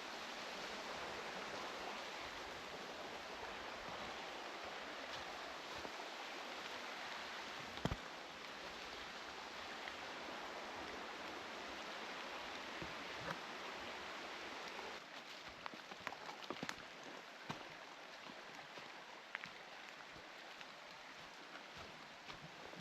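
Steady hiss of rain and running water. There is one sharp knock about eight seconds in. About fifteen seconds in it turns quieter, with scattered drips and ticks.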